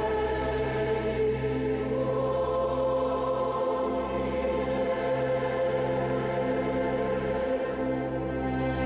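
Large mixed choir singing slow, sustained chords, accompanied by a chamber orchestra, with a deep bass note held underneath.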